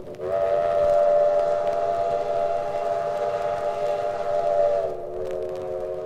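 Steam locomotive chime whistle blowing a long, loud chord of several notes. About a quarter-second in it opens fully and rises in pitch, then near the end it eases back to a lower, quieter chord.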